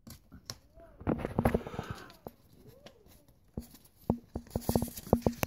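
Metal pick being worked around a rubber hose on its fitting: irregular clicks and scrapes in two busy spells, about a second in and again in the last two seconds, with a couple of faint squeaks in between, as the stuck hose is pried loose.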